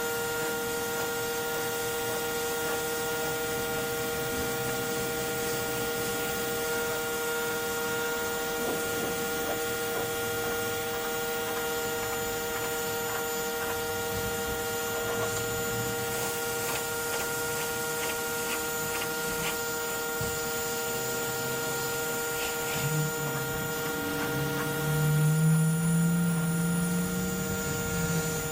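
Pressure washer running steadily, a constant whine over the hiss of the spray, while cleaning a sidewalk after a chlorine soak. A louder, lower wavering sound rises over it briefly near the end.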